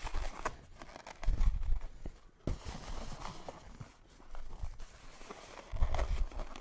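Clusters of inflated latex balloons handled and pushed onto a balloon column pole: rubbing and knocking, with two heavier thudding stretches, about a second in and near the end.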